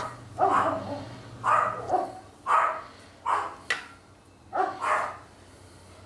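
A dog barking: a run of about seven short barks, some in quick pairs, stopping about five seconds in.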